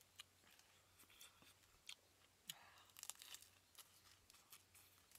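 Faint crisp crunches and clicks of fresh lettuce being torn and chewed, a scattered series with a denser cluster about three seconds in.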